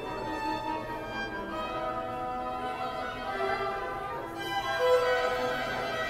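Two violins playing together, bowing a melody of held notes over a second part.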